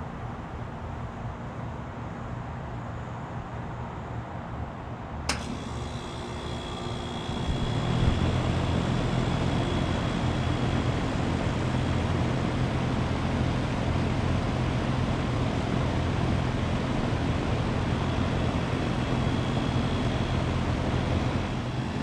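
2020 Goodman GSX14 2-ton air-conditioner condensing unit starting up: a sharp click about five seconds in, then a couple of seconds later the compressor and condenser fan come on, rising into a steady hum and rush of air that runs on evenly. It starts and runs smoothly, the first startup after the winter.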